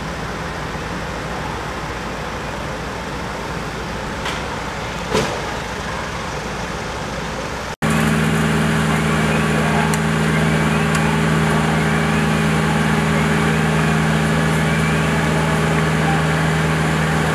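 Fire engines' engines running steadily in the street. After a cut about eight seconds in, an engine runs much closer and louder: a steady low drone.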